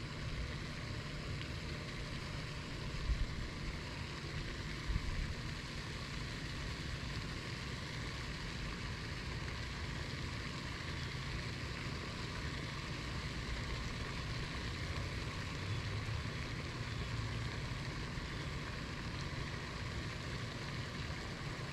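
Steady splashing hiss of a pond fountain's spray falling back onto the water, over a low, uneven rumble, with a couple of soft bumps about three and five seconds in.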